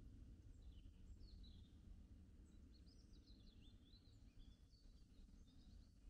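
Faint forest ambience: a steady low rumble with small birds chirping in short, high twittering phrases, most of them through the middle.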